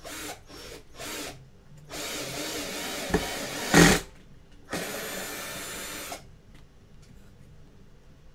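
Small cheap cordless drill on slow speed driving a 25 mm flat-head wood screw into timber. Three short bursts come first, then a run of about two seconds that ends in a sharp knock, then another run of about a second and a half.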